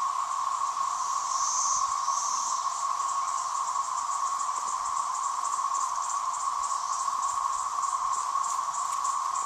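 A loud, steady chorus of many cicadas droning together, with a faster, higher pulsing buzz over the drone.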